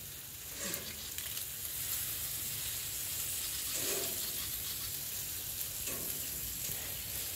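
Food sizzling steadily on a barbecue, an even frying hiss.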